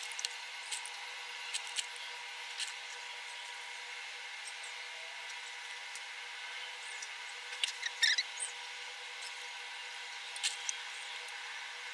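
Scattered small, sharp clicks and snaps of snail shells being handled and broken by hand over a bowl, with a quick cluster of them about eight seconds in and a few more about two seconds later, over a steady faint hiss.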